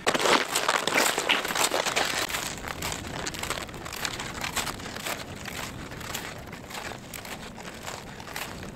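Boots crunching on packed snow and a loaded gear sled scraping along a snowmobile track, a dense crunching that is loudest for the first couple of seconds and then gets quieter as the walker moves off.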